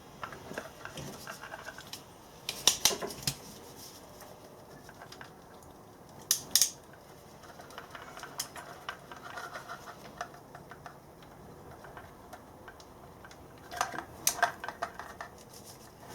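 Small hand tools and parts handled at a workbench while wiring an enclosure box: scattered clicks and metallic clinks, with sharper clatters about three seconds in, around six and a half seconds and near the end.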